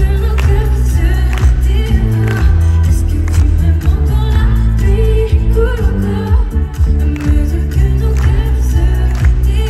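Live pop song: a woman's lead vocal sung into a handheld microphone over a band backing with heavy bass, amplified through the concert PA.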